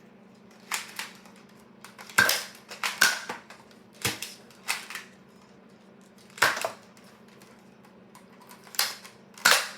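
Nerf blasters firing and foam darts hitting targets: about nine sharp, separate snaps at irregular intervals, the loudest a little over two seconds in, about three seconds in, and near the end.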